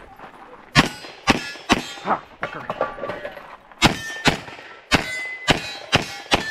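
Handgun fired in quick strings, about nine or ten shots, with a short metallic ring after some of them.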